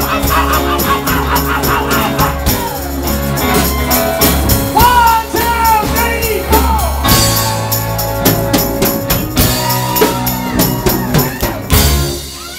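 Live rock band playing: drum kit, electric bass and electric guitar, with a man singing lead. The band stops near the end.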